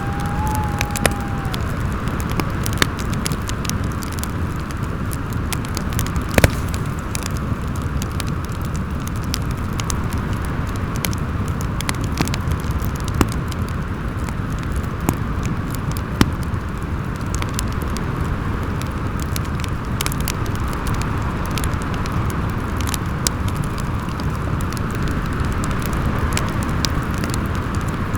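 Fireplace crackling with scattered sharp pops over a steady rumble of howling storm wind, with a brief whistle at the start.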